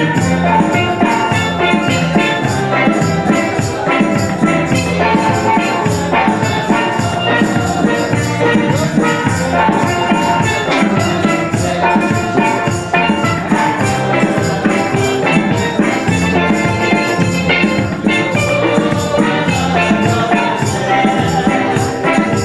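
Upbeat music with a steady beat and busy percussion.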